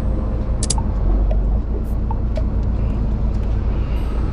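Fishing boat's engine running steadily with a low rumble, with a few brief sharp clicks on top.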